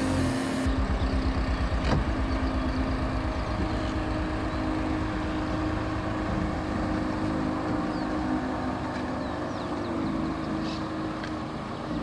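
Motorboat engine running steadily at speed, a held drone with a low, even throb during the first few seconds.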